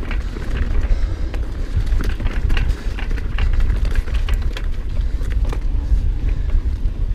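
Giant Trance full-suspension mountain bike ridden fast down a dirt forest trail: a steady heavy rumble of wind and tyres over dirt and dry leaf litter, with frequent short clicks and rattles from the bike.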